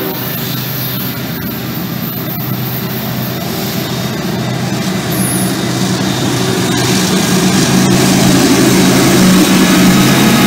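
Two GE diesel-electric freight locomotives, a CSX ES44AC leading an AC44CW, approach and pass close by. Their engines run with a steady low drone over the rumble of the train, growing steadily louder as the units come alongside.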